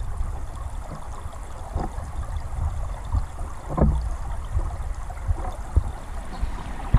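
Shallow stream water flowing past a camera held underwater: a muffled low rumble with gurgles and scattered ticks and knocks, the loudest a gurgle about four seconds in.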